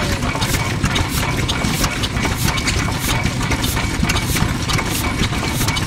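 Yanmar Diesel Type HC 10 hp large single-cylinder diesel engine running steadily, with a slow, even beat of about two strokes a second. Its exhaust puffs out like a breath through the silencer.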